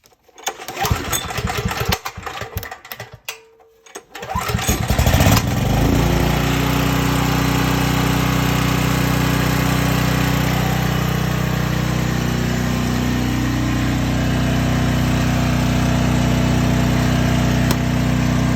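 Portable generator's small gasoline engine being pull-started on choke from cold: a few seconds of pull-cord and handling noise, then the engine catches about four seconds in and settles into a steady run.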